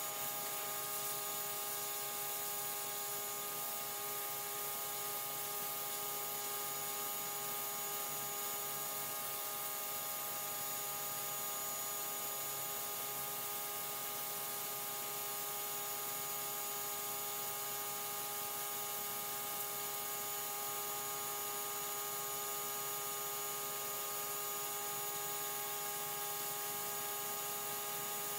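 Simoniz 1800 PSI electric pressure washer running steadily. Its motor and pump give a constant hum with several fixed tones, under the even hiss of the high-pressure spray striking concrete.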